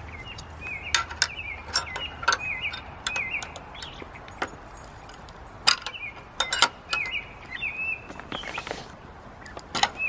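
Sharp metal clinks and clicks of a wrench working a steel screw hook as it is turned into a wooden post, irregular and scattered. Short chirps repeat steadily in the background.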